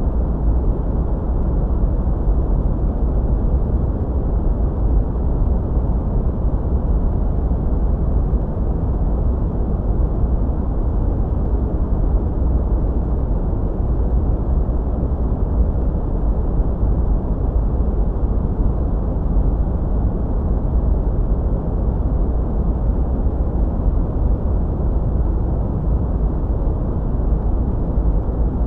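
A sleep-aid noise track: a steady, deep rushing noise, heavy in the low end and muffled in the highs, with no change or break.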